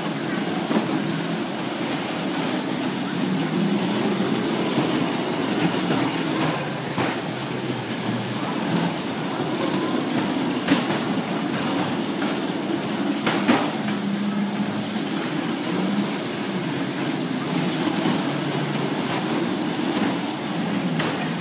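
A battery-powered toy car's small motor and gears running steadily, with a few sharp clicks.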